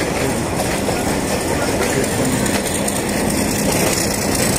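Passenger train running along the track, a steady, even noise.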